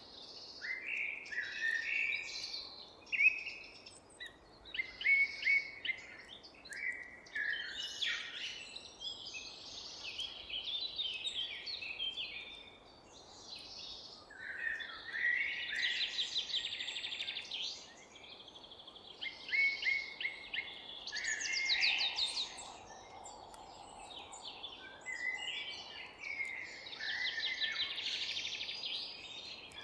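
Several forest songbirds singing and calling at once, an unbroken chorus of chirps, short sweeps and fast trills over a faint steady background hiss.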